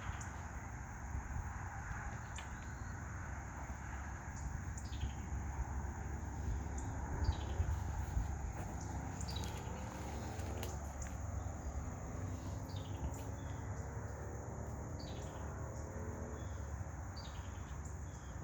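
Outdoor insect and bird sounds: a steady high insect trill, with short falling chirps roughly once a second, over a low rumble.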